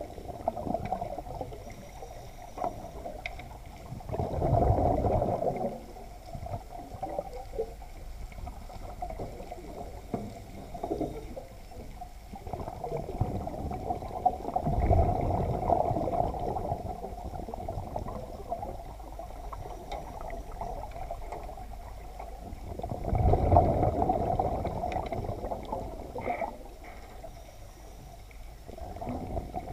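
Muffled underwater water noise heard through a camera's waterproof housing, a steady low rush that swells louder three times, about 4, 14 and 23 seconds in.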